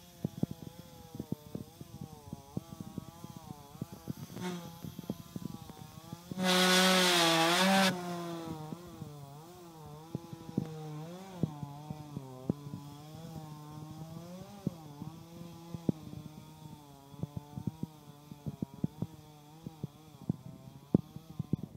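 Chainsaw running up in the tree with a wavering engine note, revved hard for about a second and a half partway through, then dropping back. Scattered sharp clicks are heard throughout.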